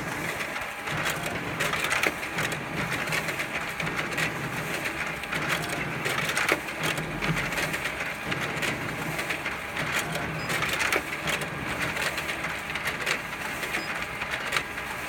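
A 41-page-per-minute office copier in the middle of a copy run, its rollers and feed mechanism running with a clatter of clicks as it prints and ejects sheets into the output tray, about one every second and a half.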